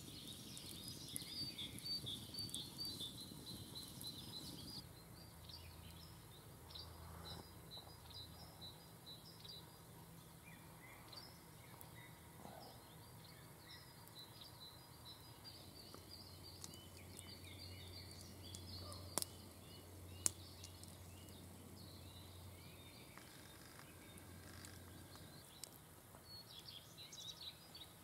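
Faint chorus of small birds chirping and singing, busiest in the first few seconds. Two sharp clicks about a second apart come about two-thirds of the way through.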